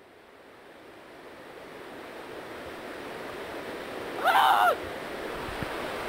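Rushing stream water swelling steadily louder, with a short high-pitched human yell about four seconds in: an imitation bear call.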